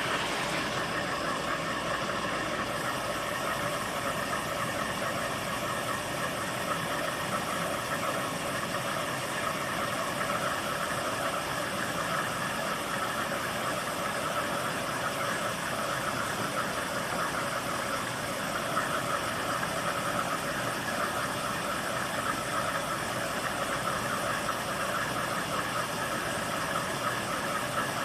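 Washing machine running its wash stage, a steady mechanical running noise that holds even throughout.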